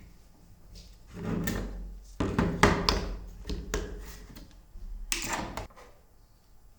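A few bouts of knocking and scraping as things are handled and moved about, like a drawer or cupboard being opened and shut.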